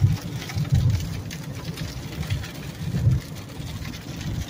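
Car cabin on a wet road: a low road and engine rumble that swells now and then, with tyres hissing on wet pavement and light rain ticking on the windshield.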